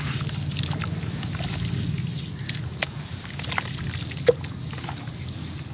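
Hands sloshing and squelching through an over-wet sand-cement slurry in a basin, with drips and splashes as handfuls are lifted and dropped back. A sharp splat comes a little before three seconds in, and a louder one just past four seconds.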